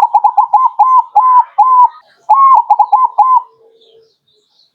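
Crossbred zebra dove (perkutut krosing) singing its cooing song: two phrases of quick, clipped notes at one steady pitch, the second ending about three and a half seconds in.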